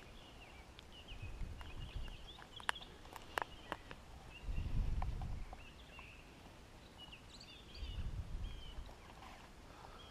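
Outdoor ambience with small birds chirping faintly in the background. Three short low rumbling swells come and go, and a few sharp clicks fall near the middle.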